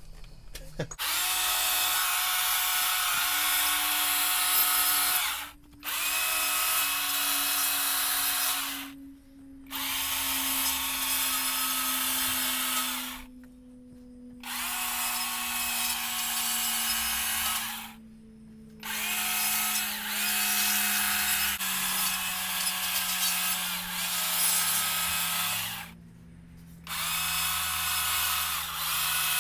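Stihl battery-powered chainsaw making light, angled detailing cuts into a wooden log. It cuts in about six spells of a few seconds each, with short pauses between them.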